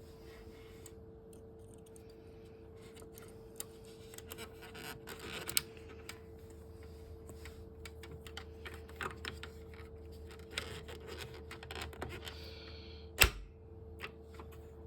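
Scattered small plastic clicks and scrapes of parts being handled at a Konica C3350i copier's paper feed during a feed-tyre replacement, over a steady hum, with one loud knock about 13 seconds in.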